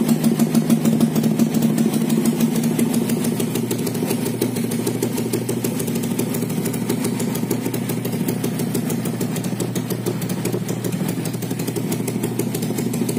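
Honda Win motorcycle with a swapped-in Yamaha Vega 2005 four-stroke single-cylinder engine on a PE26 carburetor, idling steadily through an aftermarket slip-on exhaust. It runs smoothly on the new carburetor with no tuning done.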